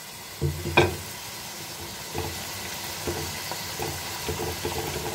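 Minced meat (keema) and potato pieces frying in oil in a metal pot over a high gas flame, giving a steady sizzle, with a single knock just under a second in.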